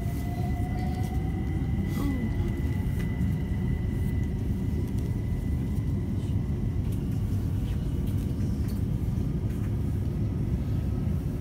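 London Overground electric train running, heard from inside the carriage: a steady low rumble. A faint whine rises slightly in pitch over the first couple of seconds as the train picks up speed pulling out of the station.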